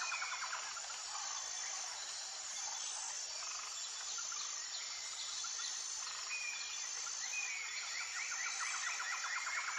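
Birds calling over a steady high insect chorus. Short whistled notes and quick trills come in at the start and again in the last few seconds, with a falling whistle near the end.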